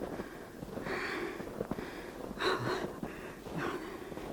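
A person breathing audibly close to the microphone: a few short, noisy breaths about a second apart.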